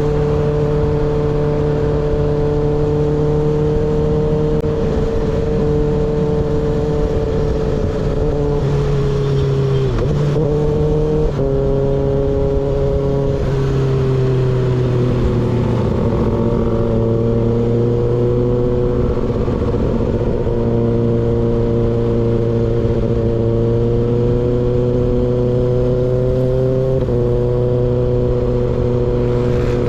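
Kawasaki ZX6R inline-four engine with an unbaffled M4 GP19 slip-on exhaust, running under way at a steady pitch, with a few short dips and steps in pitch where the throttle is rolled off and the gears change.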